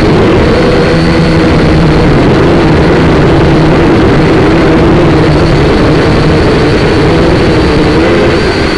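SYMA quadcopter's electric motors and propellers whirring loudly from close by, a steady buzzing whine whose pitch wavers up and down as the throttle changes.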